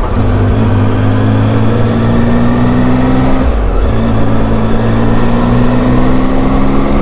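Motorcycle engine pulling under acceleration, its note rising slowly in pitch, with a short break between gears about three and a half seconds in before it climbs again. Wind noise over the microphone runs underneath.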